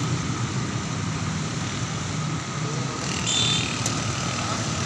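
Steady outdoor urban background noise of distant road traffic, with a brief high-pitched sound about three seconds in.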